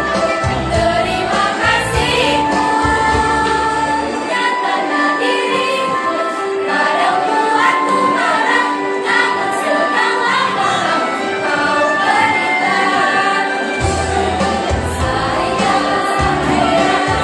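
A schoolgirls' choir singing together with musical accompaniment. The bass part drops out about four seconds in and comes back near the end.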